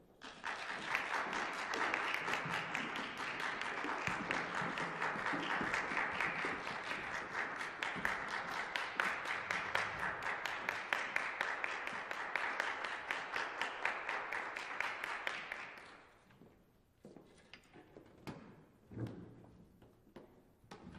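Audience applauding, starting abruptly and fading out about sixteen seconds in; after it, a few scattered soft knocks.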